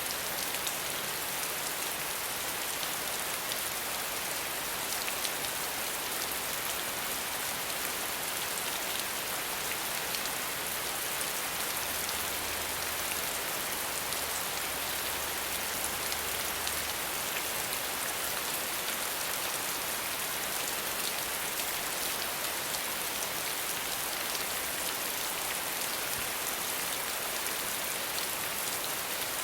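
Steady rain falling, an even hiss sprinkled with small drop ticks, heaviest in the high end and unchanging throughout.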